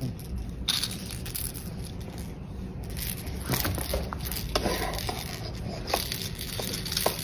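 Plastic spinner toy and a baby's hands scraping and knocking on a plastic high-chair tray, with scattered irregular clicks, over a low steady hum.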